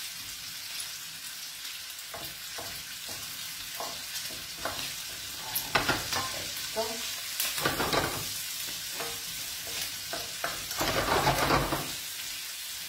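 Diced guanciale sizzling in a stainless steel frying pan as its fat renders out, stirred and scraped with a wooden spoon. The steady sizzle is broken by louder scraping strokes about halfway through and again near the end.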